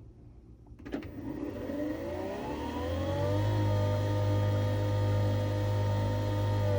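Nespresso Vertuo Next coffee machine brewing an espresso capsule: a click about a second in, then the capsule spinning up with a rising whine that levels off into a steady whir over a low hum.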